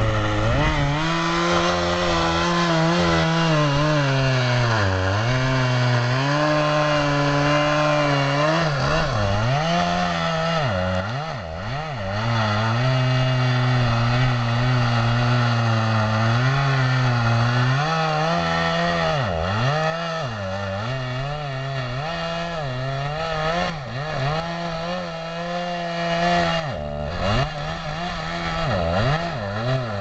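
Husqvarna two-stroke chainsaw running at full throttle while cutting through the trunk of a large tree; the engine's pitch dips sharply several times as the chain bogs under load in the wood, then picks back up.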